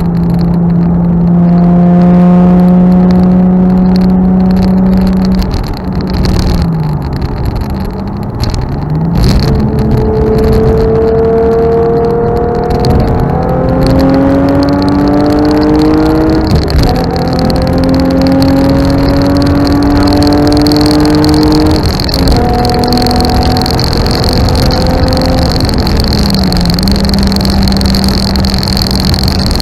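Infiniti G37S sedan's 3.7 L V6, fitted with a Topspeed exhaust and Berk resonated test pipes, heard from inside the cabin under wide open throttle. The engine note holds steady for about five seconds, then climbs in pitch several times, dropping briefly between climbs.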